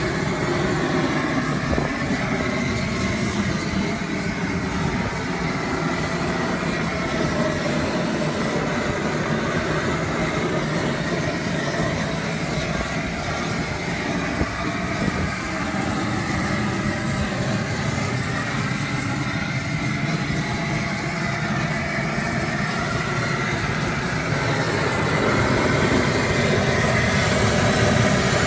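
Propane jet burners under a crawfish boiler running with a steady rushing noise, a little louder near the end.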